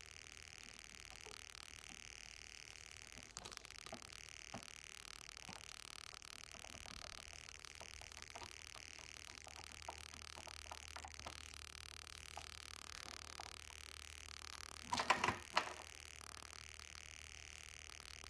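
Drive chain and steel front sprocket of a Yamaha FZ1 clicking faintly as they are handled and worked off the output shaft, with a short, louder metallic rattle about fifteen seconds in, over a steady faint hiss.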